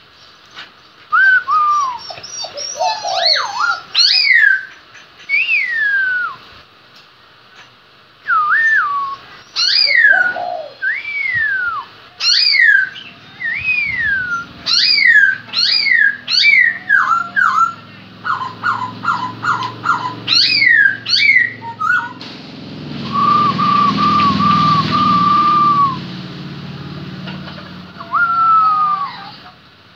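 Caged black laughingthrush (khướu mun) singing loud, clear whistled phrases of sliding notes that swoop down and back up. Partway through comes a quick run of short repeated notes, then a steady, even trill.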